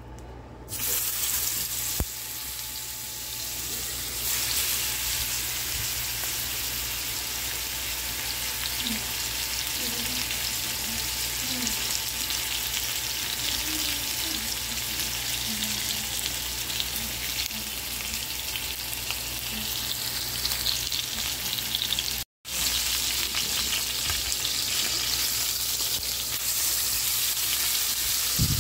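Ribeye steaks frying in hot butter and avocado oil in a nonstick pan: a loud, steady sizzle that jumps up about a second in as the steaks go into the pan. It breaks off for an instant about three quarters of the way through.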